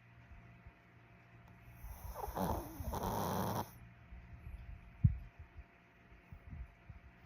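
Maltese puppy snoring in its sleep with soft, low breaths. About two seconds in comes one louder, rasping snore lasting about a second and a half, and there is a brief low thump about five seconds in.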